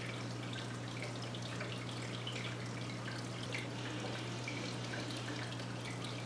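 Water dripping and trickling: many small, irregular drips over a steady low hum.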